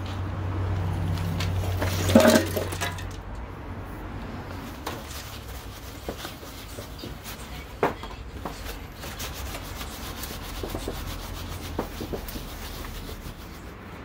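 Scrubbing and rubbing on the metal plates of a fire pit, cleaning off baked-on grease, with scattered light knocks and a louder clatter about two seconds in. A low hum sounds under it for the first three seconds.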